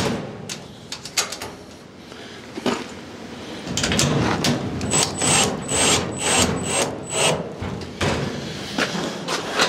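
Cordless drill driving hinge screws into a steel shed door: scattered clicks, then a regular run of strokes about three a second, each with a short high squeak.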